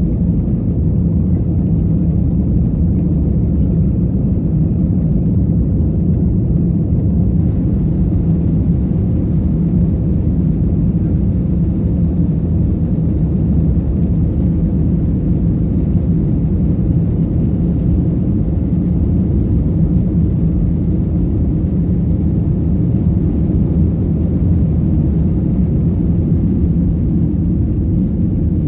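Airbus A321 cabin noise during the takeoff roll: a steady, loud, deep rumble of the jet engines at takeoff thrust and the wheels on the runway, heard through the cabin wall. A little more hiss comes in about seven seconds in.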